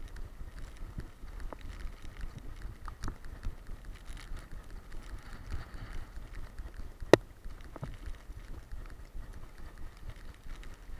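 Handling noise of an action camera strapped to a running boxer dog: a steady low rumble with small irregular knocks and rubs as the mount jostles with her strides. One sharp knock about seven seconds in is the loudest sound.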